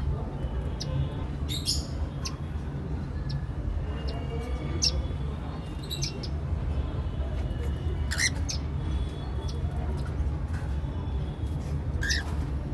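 Cockatiels giving short, scattered chirps and squawks, with a few sharper calls about two seconds in, around six and eight seconds, and near the end, over a steady low hum.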